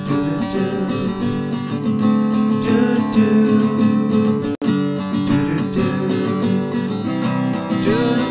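Background music led by strummed acoustic guitar, cutting out for an instant about halfway through.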